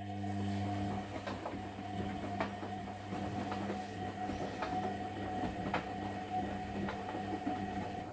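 Bendix front-loading washing machine tumbling a full wash load: the motor hums steadily as the drum turns, with irregular small knocks of wet laundry and water falling inside the drum. The motor stops suddenly near the end, one turn of the wash's tumble-and-pause rhythm.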